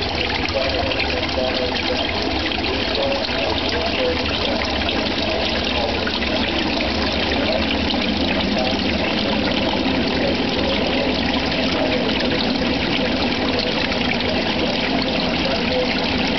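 Steady rush and trickle of water in a basement sump pit where the sump pump is handling an abnormally large inflow of water.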